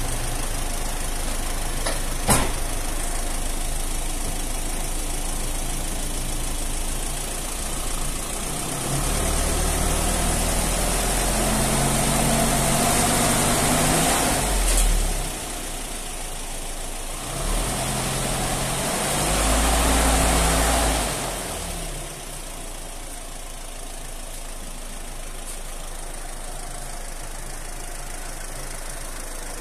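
Gas-fuelled (methane and propane) engine swapped into a Ford Transit in place of its diesel, idling, then revved twice, the pitch climbing and falling back each time, before settling to a quieter idle. A single sharp click a couple of seconds in.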